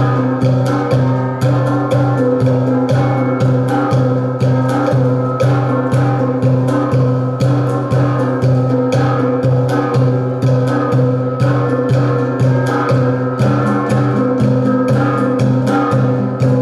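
Dance music with a steady, even percussion beat of about two strokes a second over sustained tones.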